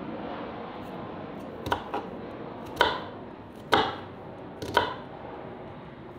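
Sharp chopping strikes, six in all and roughly a second apart, two of them in quick pairs, over a steady background hiss.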